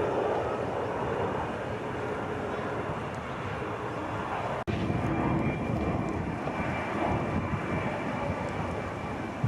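Steady engine noise from an airliner flying overhead, with a faint high whine, broken by a split-second gap about halfway through.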